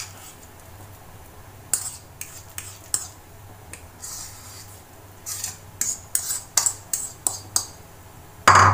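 Metal spoon clinking and scraping against a bowl as thick masala paste is scooped out and dropped onto fish, a run of irregular sharp clicks with a louder knock at the end.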